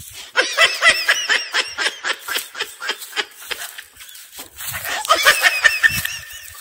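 A young man laughing in quick, high-pitched giggling pulses, in two bouts: one starting just after the beginning and another near the end.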